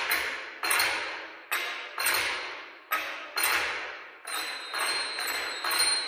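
Solo percussion: about ten sharp, irregularly spaced strikes, each a noisy ringing wash that dies away within a second. A thin, high, steady ringing tone comes in about four seconds in and holds under the strikes.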